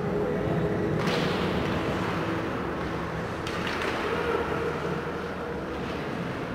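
Ice hockey play in an indoor arena: a steady rink hum under skates and sticks on the ice, with a sudden sharp noise from the play about a second in and another brief sharp one about three and a half seconds in.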